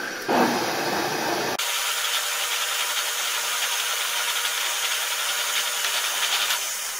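Drill press running, its 7/64 in. bit drilling through a piece of hex aluminum bar: a steady, high cutting noise. The lower part of the sound drops away abruptly about a second and a half in, and the noise fades near the end.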